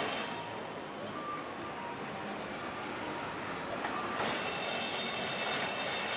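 Tosaden streetcar in Anpanman livery rolling slowly along street-running rails, with faint thin wheel squeal. About four seconds in, a louder high hiss with thin whining tones joins in.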